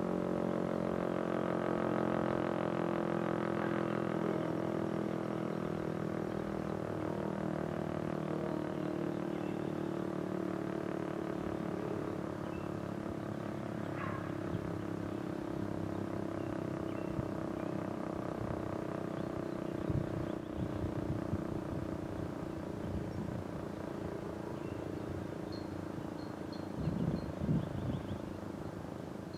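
Federal Signal STL-10 electromechanical siren winding down, its tones sliding slowly lower and fading as the rotor coasts to a stop after shutoff. A brief bird chirp sounds about halfway through.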